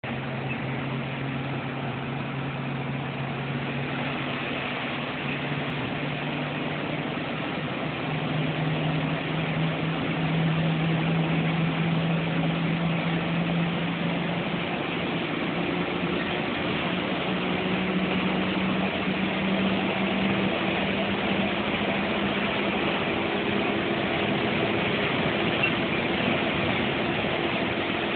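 Bus engine running with road and cabin noise, heard from inside the cab while driving. About eight seconds in, the engine hum rises in pitch and the whole gets louder, then holds steady.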